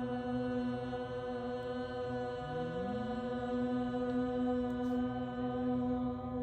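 A steady, chant-like musical drone holding one low note, with a second tone sliding up to join it about two and a half seconds in.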